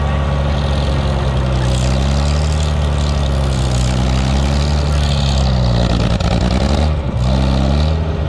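Antique tractor's engine running under way, heard from the seat close to its upright exhaust stack. Its pitch sags and recovers slightly a few times as the engine speed shifts.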